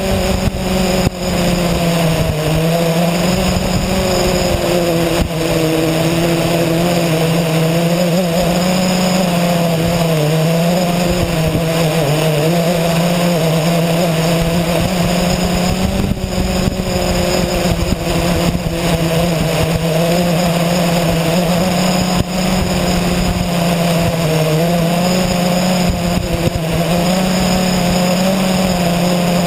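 350 QX quadcopter's motors and propellers whining steadily in flight, heard close up from its onboard camera, the pitch wavering slightly up and down.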